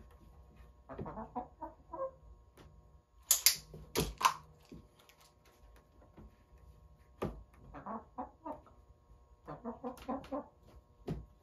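Orpington hen clucking in short runs of quick notes, three times, with sharp taps or knocks in between; the loudest two come about three to four seconds in.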